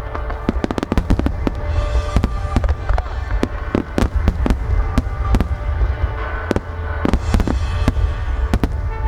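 Aerial firework shells bursting in quick succession: dozens of sharp booms and bangs with a deep rolling rumble between them, over music.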